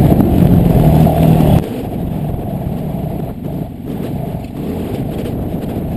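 Dirt bike engine under throttle. About a second and a half in it drops off sharply to a lower, steadier running as the throttle closes and the bike rolls on.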